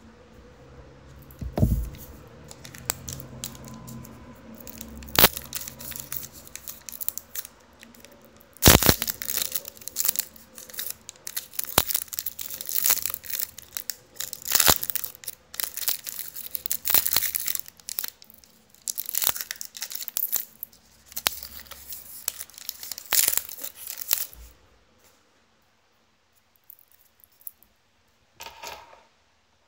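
Foil wrapper of a Panini Brilliance basketball card pack being torn open and crinkled: after a few sharp taps, a long dense run of crackling, tearing and crumpling that stops abruptly near the end.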